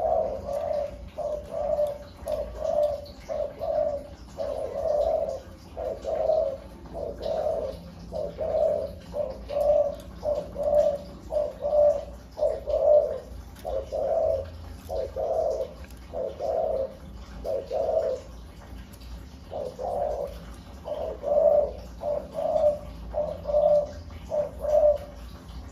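Caged spotted doves cooing over and over in low, rhythmic phrases of short coos, with a brief pause about two-thirds of the way through.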